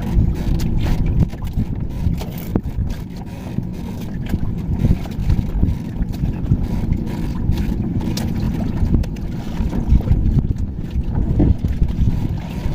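Wind buffeting the microphone, an irregular low rumble that rises and falls, with a few faint clicks.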